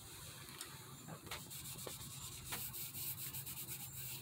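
Cloth rag rubbing oil into a finished wooden table leg: quick back-and-forth scratchy strokes that start about a second in, after a few separate light ticks.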